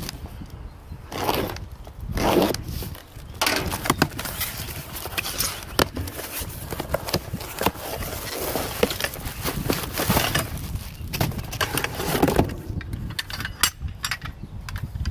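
A cardboard shipping box being opened and its contents pulled out: irregular crackling, scraping and rustling of cardboard and packaging, with scattered sharper knocks.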